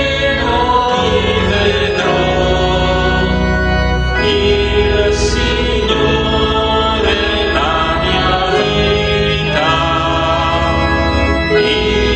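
A man singing an Italian communion hymn in a slow, chant-like style while accompanying himself on an organ, with held organ chords under the voice.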